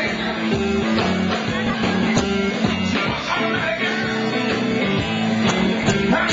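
Blues-rock band playing live: electric guitar over a drum kit, with steady, regular drum hits.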